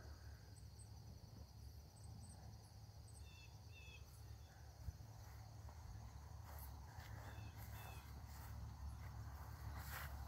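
Faint insect chorus of crickets trilling steadily in tall summer grass, with a few short paired chirps repeated three times, over a faint low rumble.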